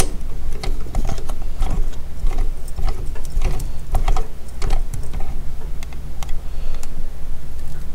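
Irregular clicks and small knocks of a portable light being handled and set in place.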